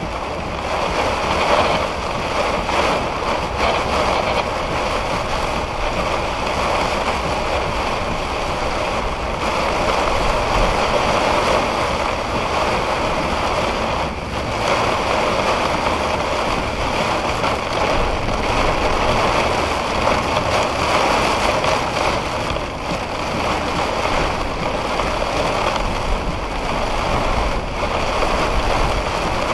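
Heavy rain pouring down in a steady hiss during a thunderstorm.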